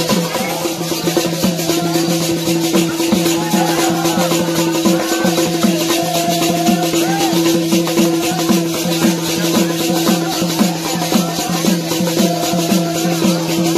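Bundeli Rai folk music: a drum beating a fast, steady rhythm under dense, fast jingling percussion, with steady held notes and a wavering melody line above.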